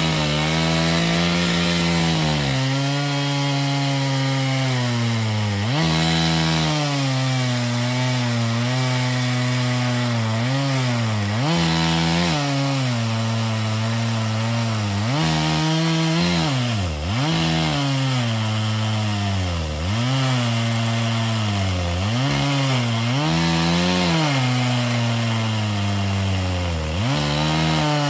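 Two-stroke chainsaw cutting a felling notch into a dead ash trunk, running at high revs while its pitch repeatedly sags under load and climbs back as the chain bites and frees.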